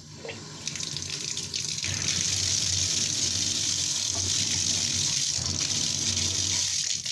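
Water running steadily from a freshly rebuilt Delta shower faucet, with its new ball valve and seals being tested. The flow builds over the first couple of seconds, holds steady, then falls away near the end.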